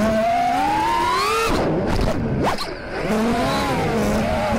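An Armattan Rooster 5-inch FPV quad's brushless motors and props whine. The pitch climbs for about a second and a half, breaks up and drops briefly around the middle as the throttle comes off, then settles into a steady whine. A loose part of the Crossfire receiver, damaged in a crash, slaps against a prop throughout.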